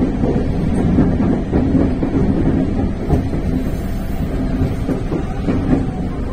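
JR Central 313 series electric train running over points and rail joints, heard from inside the front car. A steady low rumble is broken by irregular clicks and clatter from the wheels.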